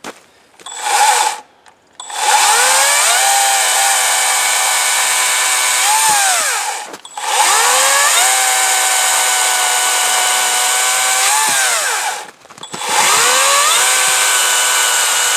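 Harbor Freight Atlas 40-volt battery chainsaw cutting through a log: a short blip of the trigger, then three runs of several seconds each with brief pauses between them. The electric motor's whine rises as it spins up at the start of each run, and the chain rasps through the wood.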